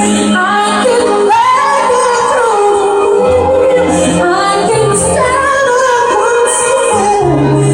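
A woman singing a pop ballad live over musical accompaniment, her held notes sliding up and down in pitch above sustained bass notes.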